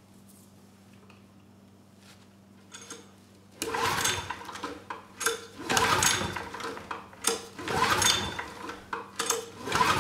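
10 HP Briggs and Stratton single-cylinder engine being cranked over by pulling its recoil starter cord about four times, starting a few seconds in, each pull a rattling spin of the engine. It is a compression test with a gauge in the spark-plug hole, and the engine does not fire.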